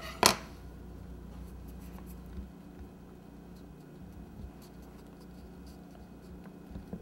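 A sharp clack as the scissors are put down on the countertop. Then hands rub and smooth rolled fondant over the sides of a cake, a faint rustling with a few small taps.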